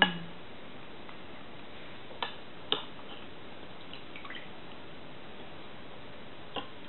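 Three short, sharp clicks of a metal spoon against a porcelain bowl, with a few fainter small eating sounds between them, over a steady background hiss.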